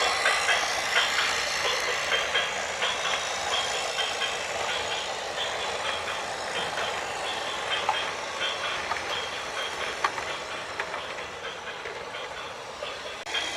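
Heavy construction vehicle running, with a reversing alarm beeping over and over.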